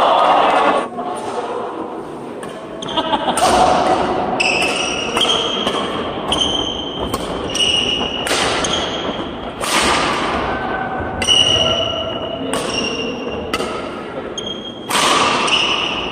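Badminton doubles rally: rackets striking the shuttlecock in sharp hits, and sports shoes squeaking briefly and repeatedly on the wooden court floor, with voices in the background.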